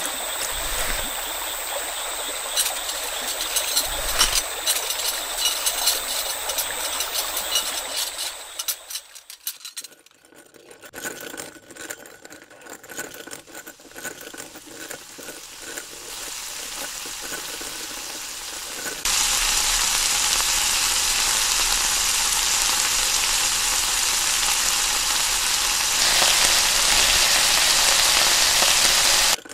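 Running water like a stream for the first eight seconds or so, then a quieter stretch with faint clicks. About two-thirds of the way through, a steady frying sizzle starts suddenly, grows louder near the end and then cuts off.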